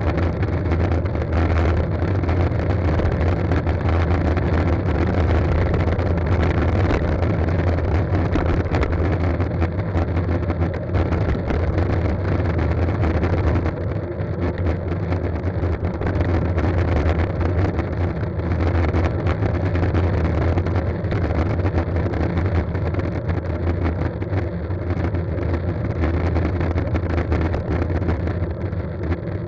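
Steady low rumble of road traffic and wind on a cyclist's camera microphone while riding in traffic, easing a little about halfway and again near the end.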